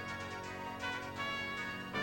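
Background music: sustained brass chords with orchestral backing.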